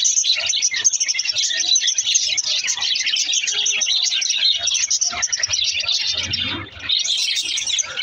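A flock of budgerigars chattering and warbling together, a dense continuous mix of fast chirps, squeaks and twitters. It dips briefly about six and a half seconds in, then picks up again.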